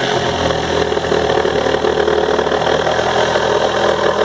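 A small electric motor switched on just before and running loud and steady at an even pitch.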